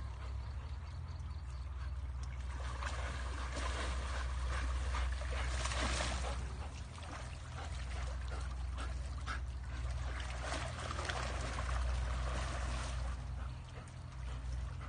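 Water splashing and sloshing in uneven bursts over a steady low rumble.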